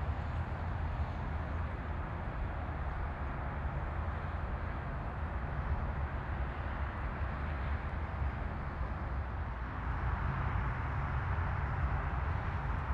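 Turboprop engines of a Dash 8-400 airliner at takeoff power, a steady low rumble with a broad whooshing roar as the aircraft rolls and lifts off, growing a little louder near the end.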